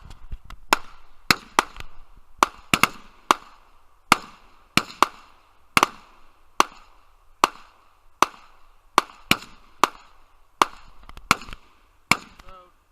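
A steady string of about twenty gunshots from a semi-automatic firearm, fired roughly one every half-second to second, sometimes two in quick succession, each with a short echo.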